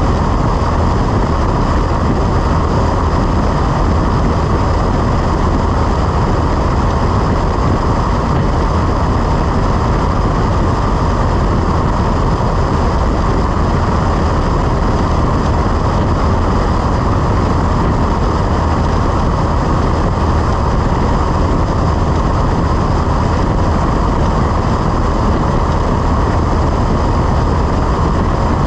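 Cessna 172 engine and propeller droning steadily in flight.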